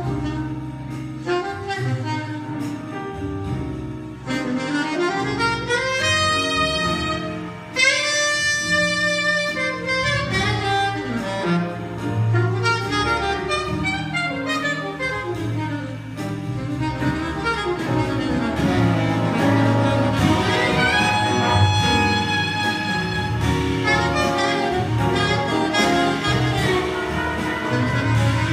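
Jazz band playing a swing arrangement, saxophones prominent over brass. About four seconds in, the horns climb in an upward run to high held notes.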